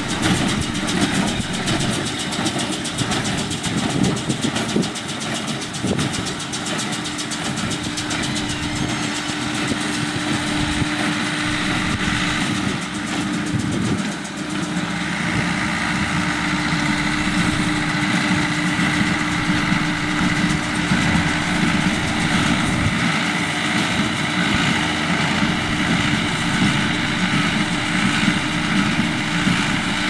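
Ford tractor engine running steadily as it drives a John Deere small square baler through barley straw. The baler's mechanism adds a continuous fine clatter, and a steady higher whine comes in about halfway through.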